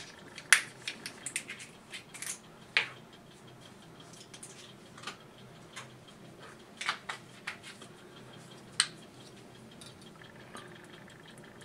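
Scattered light clicks and taps of a kitchen utensil against a saucepan and containers, with a few louder taps among them, as curry is added to the sauce.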